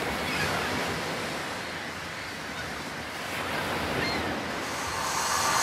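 A steady rushing noise like surf or wind, with no pitch, that rises and falls gently.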